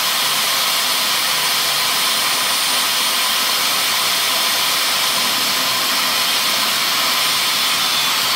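Corded electric drill running steadily at full speed, a small cobalt pilot bit boring through heavy steel.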